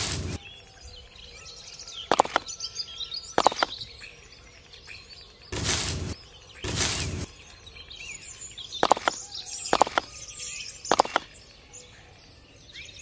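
Faint bird chirping in the background. Over it come a few short sharp clicks and three brief rustling, scraping bursts from small toy bricks and plastic plants being handled and pulled out of sand.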